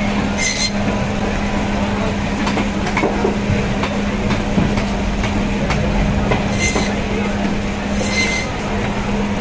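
Band saw running with a steady hum while it cuts pangas fish into chunks, its blade rasping through the flesh and bone in short bursts about half a second in and twice near the end.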